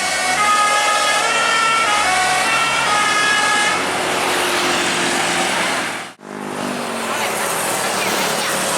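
Telolet basuri bus horn playing a melody of quickly changing notes. The melody stops about four seconds in and gives way to loud vehicle and street noise. The sound briefly drops out about six seconds in, and the street noise carries on afterwards.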